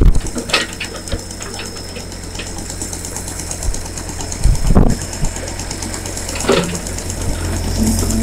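A machine running with a steady low hum, with a few sharp knocks.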